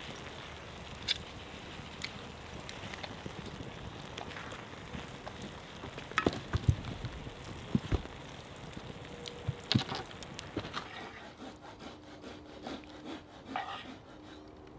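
Stew sizzling in a cast iron skillet over a campfire grill, with a wooden spoon stirring, knocking and scraping against the pan. About eleven seconds in the hiss drops away, leaving the wooden spoon scraping around the skillet.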